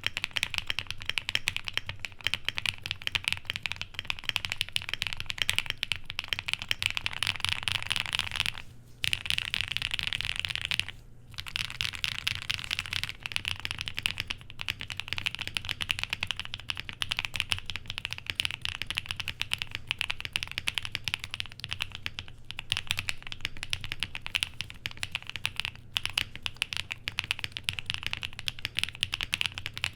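Typing on a QK65 mechanical keyboard with lubed Coley linear switches on an FR4 plate: a fast, continuous run of key presses with a creamy, poppy clack, broken by two short pauses about nine and eleven seconds in. The pop comes from the long-pole stem bottoming out on the PBT bottom housing.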